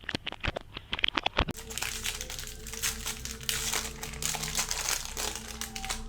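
Foil wrapper of a baseball card pack crinkling and crackling as it is handled and torn open. About a second and a half in, a steady low drone comes in under continued rustling.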